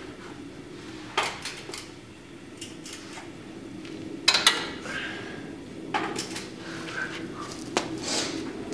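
Hand tools and metal parts clinking and knocking at a car's front suspension during a coilover install: a handful of sharp metallic clanks, the loudest about four seconds in. A steady low hum runs underneath.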